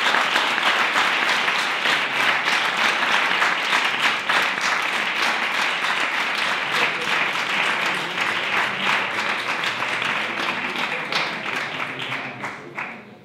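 Audience applauding: a dense run of many hand claps that slowly dies away near the end.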